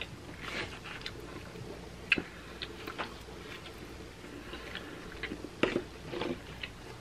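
A person chewing a mouthful of pizza, with scattered wet mouth clicks and smacks; two of them stand out, about two seconds in and near six seconds.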